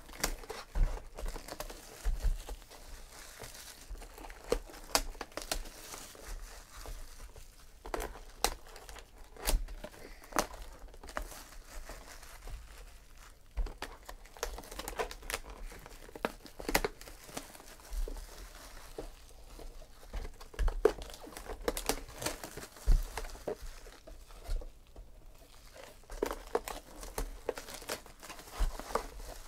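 Plastic shrink-wrap being torn and peeled off cardboard trading-card hobby boxes by hand, with irregular crinkling and crackling and frequent sharp snaps.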